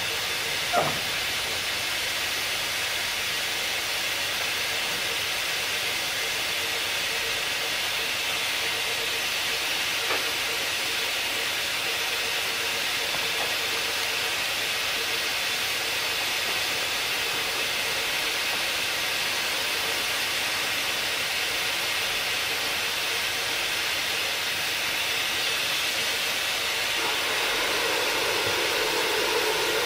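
Steady hiss of steam escaping from beneath a standing steam train's coach, growing a little louder near the end.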